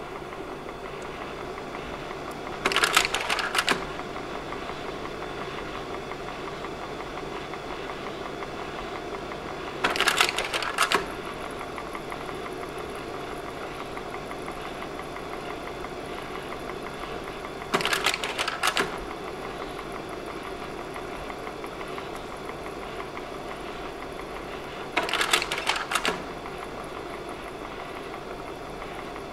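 Slide projector's cooling fan running steadily, with the slide-change mechanism clacking through a change four times, about every seven to eight seconds.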